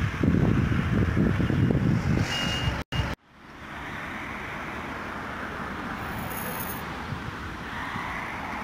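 Road traffic, with wind gusting on the microphone in low rumbles for the first few seconds. After a brief dropout, steady traffic hiss of cars driving past follows, with one car going by louder near the end.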